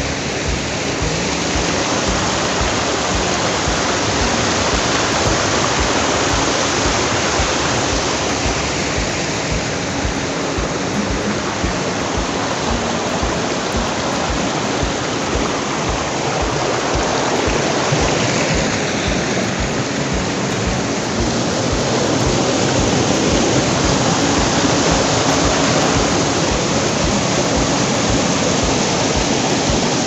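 Loud, steady rushing of a fast mountain stream or waterfall.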